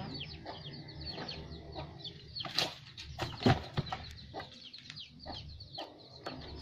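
Birds chirping rapidly in short, high, falling notes, with a few sharp knocks of tiles and boards being shifted in a debris pile, the loudest about two and a half and three and a half seconds in.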